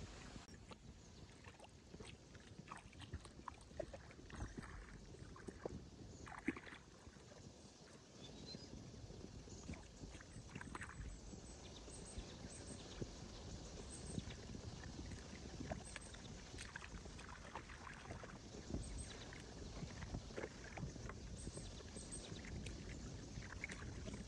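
Faint splashing and sloshing of water with many small irregular clicks and knocks, as of hands or feet working in shallow water.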